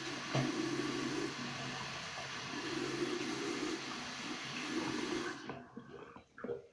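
Bathroom sink tap running, water splashing into the basin while rinsing after brushing teeth; the tap is shut off about five and a half seconds in, followed by a few small clicks.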